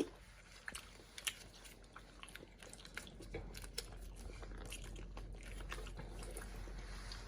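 Someone chewing gummy candy close by: faint, scattered small clicks and mouth noises.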